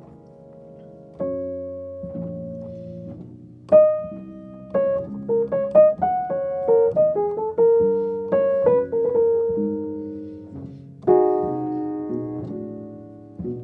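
Upright piano played solo: chords struck and left to ring and fade, with a quicker line of single melody notes through the middle and a fresh loud chord near the end.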